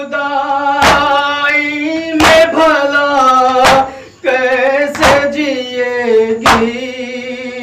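Male voice singing a Shia noha lament in long, held, wavering notes. Five sharp strikes, about one every second and a half, keep time with it: matam, the mourners beating their chests.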